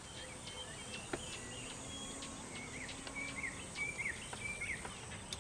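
Outdoor ambience: small birds chirping repeatedly over a steady high insect drone, with a few soft clicks.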